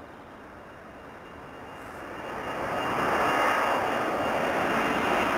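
Boeing 747-400's four jet engines at climb power as the airliner passes overhead just after takeoff: a rushing jet noise that swells sharply about two seconds in and then holds loud, with a steady high whine over it.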